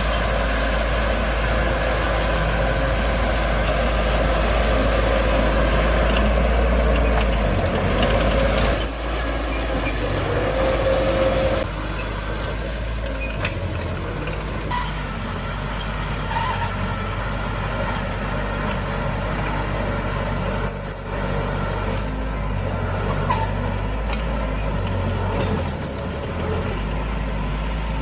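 Heavy diesel earthmoving machinery running steadily. Its higher note drops away a little under halfway through, and there are a few sharp knocks.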